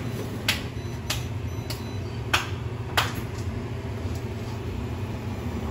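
A series of sharp taps about every 0.6 s, fading out after about three seconds, over a steady low hum.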